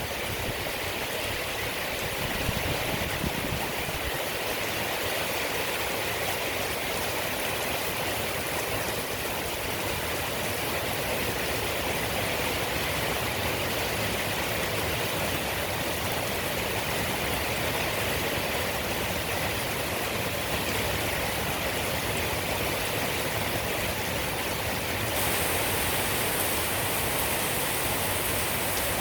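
Steady rain falling, a dense even hiss without separate drops standing out; it turns slightly louder and hissier near the end.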